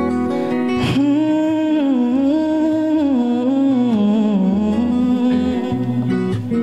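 A male voice sings one long vocal phrase into a microphone, wavering and sliding up and down in pitch, over strummed acoustic guitar chords. The voice comes in about a second in and drops out a little past the middle, leaving the guitar.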